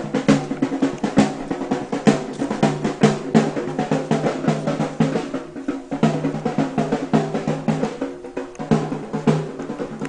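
Drums beaten in a fast, rolling rhythm, with steady pitched tones sounding beneath them.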